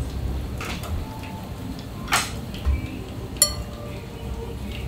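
Ramen-kitchen clatter of metal and ceramic kitchenware: a clank about two seconds in and a sharp, ringing clink about a second later, with a few lighter knocks, over a low steady rumble.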